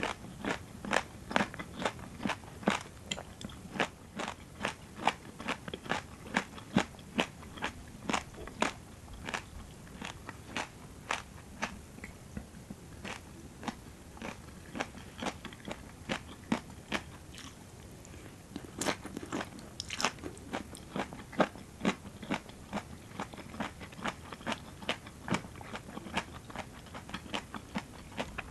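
Close-miked eating: crisp raw vegetables in a rice noodle salad crunching between the teeth, several crunches a second, with a few louder bites near the end.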